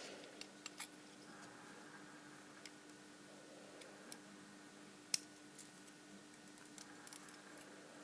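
Faint, scattered small metallic clicks and ticks of tiny pins and springs being handled while reloading an Abus 72/40 padlock's pin chambers, with one sharper click about five seconds in. A faint steady hum runs underneath.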